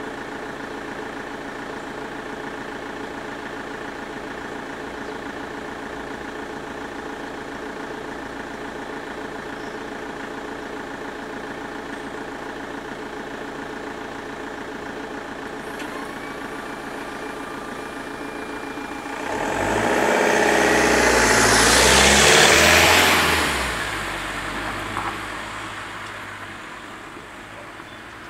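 Level-crossing warning bells ringing steadily and rapidly; about 19 seconds in a regional train passes, loud for some five seconds before fading away. After the train the bells fall silent.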